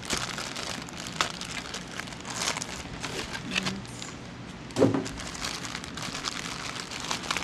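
Clear plastic accessory bags crinkling and rustling as they are handled and opened, with a single soft knock about two-thirds of the way through.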